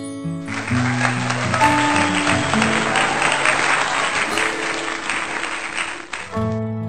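Crowd applause, dense clapping that starts abruptly about half a second in and cuts off suddenly near the end, laid over background music of plucked notes.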